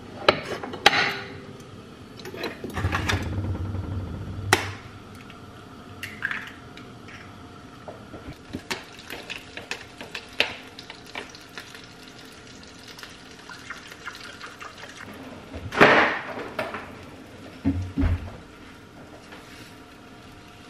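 Eggs being cooked in a frying pan on a gas stove: scattered clicks and knocks of utensils and the carton, liquid egg whites poured into the pan, and a spatula stirring the eggs, with two louder noisy bursts about three-quarters of the way through.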